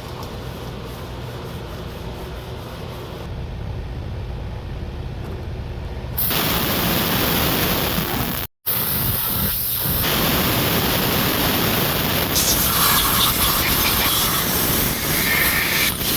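Cylinder hone spinning and scraping inside the rusty bore of a Polaris Scrambler 400 cylinder, a steady whirring hiss, clearing surface rust from the bore. It gets louder about six seconds in and cuts out briefly near the middle.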